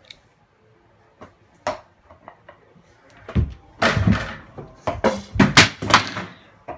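A small basketball hitting an over-the-door mini hoop and the door it hangs on: a few faint knocks, then from about halfway a run of loud thumps and knocks.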